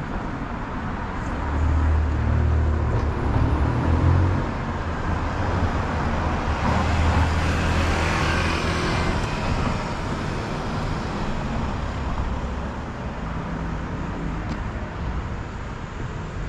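Busy street traffic with vans and cars passing close by. A low engine rumble is heavy for the first several seconds, and a vehicle passes close with a swell of tyre and engine noise about eight seconds in.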